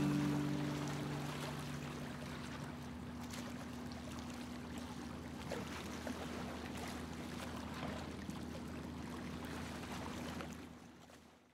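Background music fades out in the first second or two, leaving a steady wash of lakeside water and wind with a faint low hum underneath. Everything fades to silence near the end.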